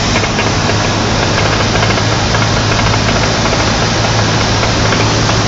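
Cessna 152's four-cylinder Lycoming piston engine and propeller running steadily in flight, a loud, even drone with a strong low hum, heard inside the cockpit.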